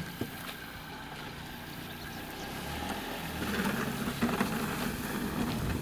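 A station wagon's engine running at low speed with its tyres rolling over grass as it drives slowly past close by, getting louder from about halfway through.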